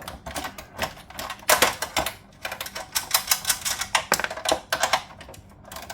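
Socket ratchet clicking in several quick runs of strokes as a nut is worked loose.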